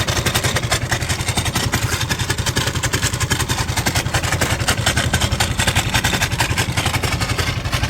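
Suzuki Let's scooter engine running at a steady idle with a fast, even clatter over its hum, an engine sound that is "बहुत ख़राब" (very bad). The mechanic traces it to an engine cover that had come loose, leaking oil through a failed oil seal.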